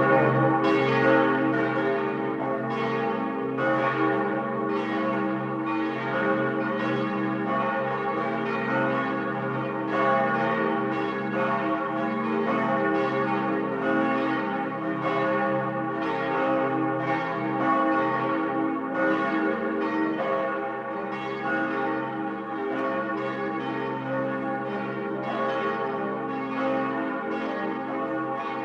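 Several church bells ringing together in a continuous peal, strikes overlapping irregularly over a sustained hum of their ringing tones.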